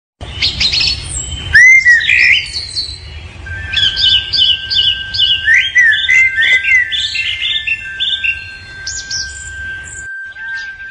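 Swallows chirping and twittering in a rapid run of short high calls, with a few louder rising-and-falling calls about one and a half to two seconds in. A steady high tone runs beneath the calls from about three and a half seconds on.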